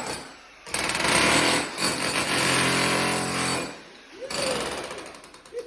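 Jackhammer hammering in bursts: a long run of about three seconds starting just after the first second, a brief stop, then a weaker stretch near the end.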